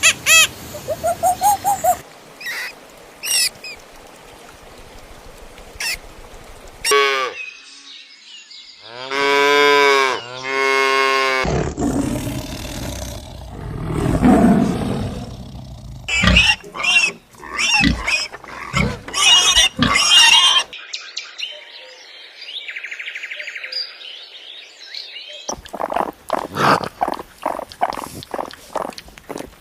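A run of different animal calls, one short clip after another with abrupt changes between them, mixing long pitched cries with quick repeated chirps or clicks.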